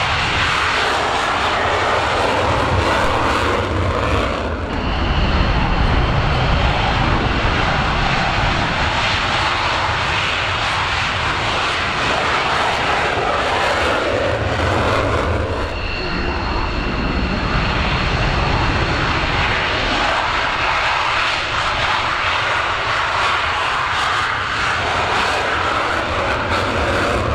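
Belgian Air Force F-16's Pratt & Whitney F100 turbofan at full power on its takeoff roll with the afterburner lit: a loud, steady jet noise that dips briefly twice, with a faint high whine over it.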